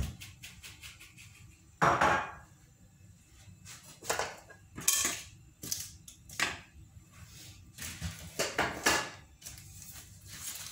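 Kitchen clatter: dishes and utensils being handled and set down on the counter in a string of separate sharp knocks, the loudest about two seconds in.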